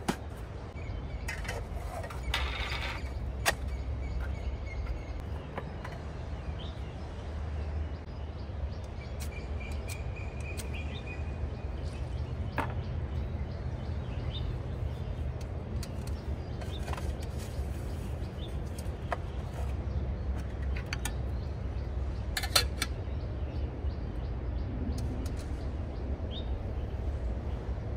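Metal cookware being handled: scattered clinks and knocks as a metal pot and its lid are set onto a small camp stove, over a steady low outdoor rumble.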